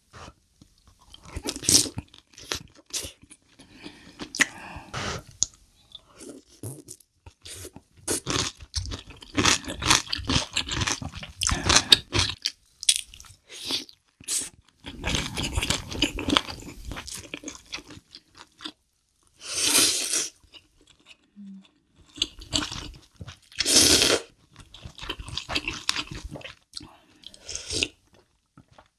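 Close-miked eating: wet chewing and crunching, with slurps of broth from a wooden spoon, in irregular bursts throughout.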